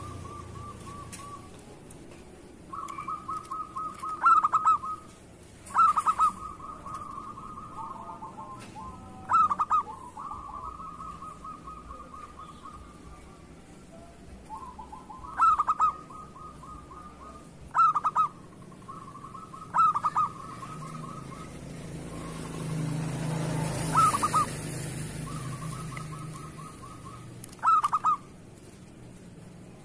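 Zebra dove (perkutut) song: rapid purring trills broken every few seconds by loud, short cooing notes. A low rumble swells and fades about two-thirds of the way through.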